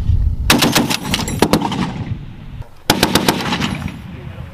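M2 .50 caliber heavy machine gun firing two short bursts of rapid shots. The first starts about half a second in and lasts about a second; the second, shorter one comes about three seconds in.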